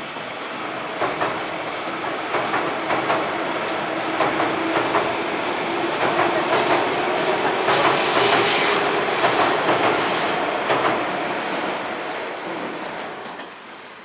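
JR East 185 series electric train passing, its wheels clacking over the rail joints, growing louder to a peak about eight seconds in and then fading away.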